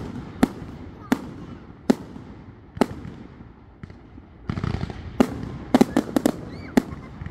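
Aerial fireworks bursting with sharp bangs. Single reports come about a second apart at first, then a quick run of bangs follows in the second half.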